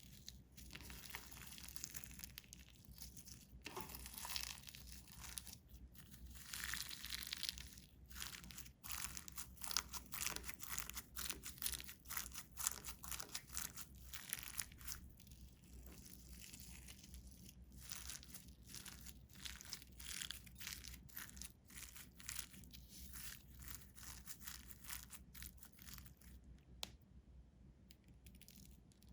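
Glitter slime being kneaded and mixed by hand: irregular sticky squishing with many small pops and crackles.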